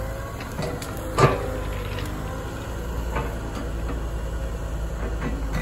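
Liebherr road-rail excavator's engine running steadily while its grab works pine brush, with one sharp loud knock about a second in and a few lighter knocks after it.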